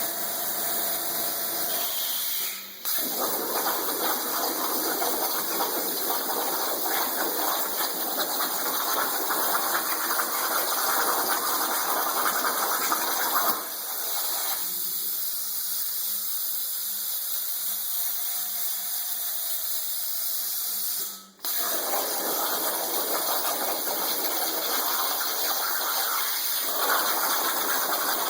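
Plasma torch cutting under water: a steady hissing, bubbling rush of gas through the water. It drops to a quieter stretch about 14 seconds in, then comes back after about 21 seconds.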